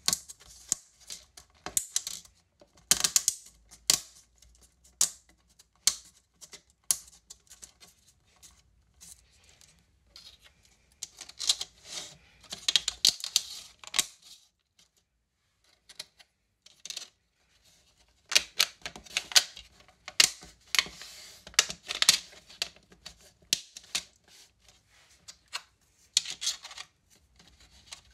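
3D-printed plastic parts clicking and tapping as accent strips are pressed and snapped into a plastic photo frame: spells of quick, sharp clicks, with a few quiet seconds about halfway through.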